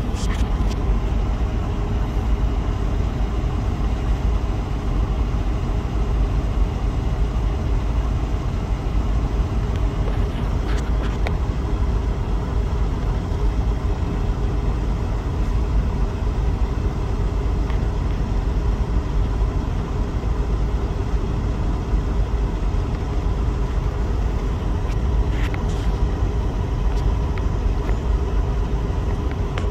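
Vehicle engine idling with a steady low rumble, heard from inside the cab, with a few faint clicks.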